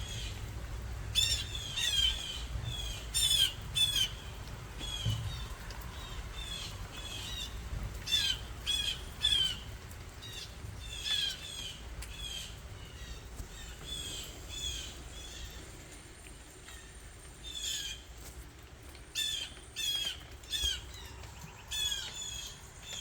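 Birds giving short, harsh squawking calls in quick runs of several, with short pauses between runs, over a low steady rumble.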